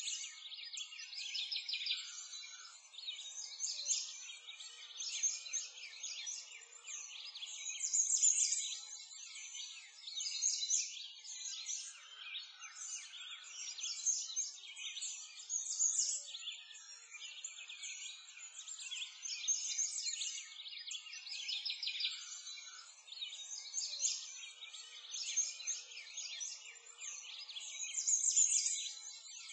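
Many small birds chirping and singing at once in a dense, continuous chorus. It is all high-pitched, with no low sound beneath it.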